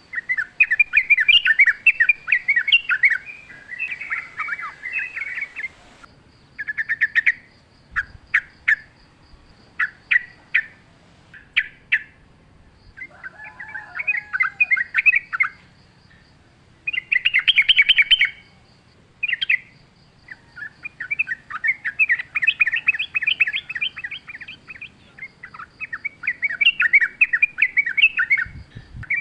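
Yellow-vented bulbul (trucukan) singing: rapid bubbling, chattering phrases of one to four seconds, broken by short pauses with a few single sharp notes between them. A faint high pulsing trill runs behind much of it.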